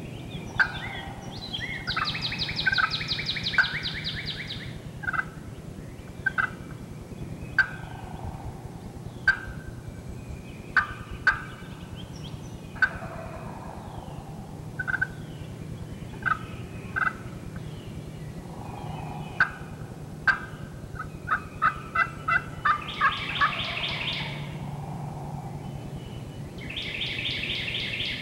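Wild turkeys gobbling three times, about two seconds in, around two-thirds of the way through and again near the end. Many short, sharp clucks come between the gobbles.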